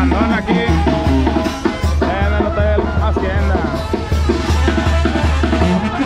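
Live Sinaloan banda playing: a tuba pumps a steady bass line under drums and a wavering melody.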